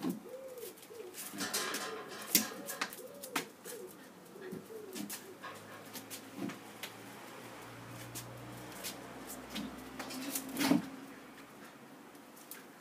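Pigeon cooing, a series of soft rising-and-falling notes over about the first five seconds, with scattered light taps and scuffs of footsteps and paws on brick paving throughout.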